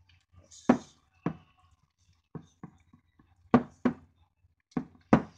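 Ground chicken being kneaded by hand in a glass mixing bowl: irregular dull knocks as the hand and mixture strike the bowl, about eight in five seconds.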